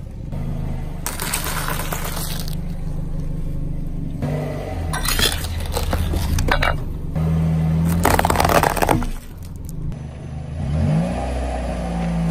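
Car engine idling while a tyre rolls slowly over small objects, crushing them with several crunching and cracking bursts, loudest about eight seconds in. The engine revs up briefly near the end.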